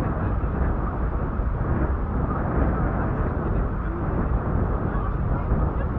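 Motorboat running at speed over choppy river water: a steady rush of engine, water and wind buffeting the microphone.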